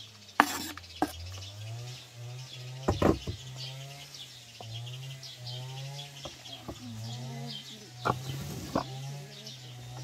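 A few sharp knocks of a knife against a wooden cutting board and a plastic bowl as chopped onion is scraped onto minced meat, the loudest about three seconds in and twice near the end. Birds chirp throughout over a low, wavering hum.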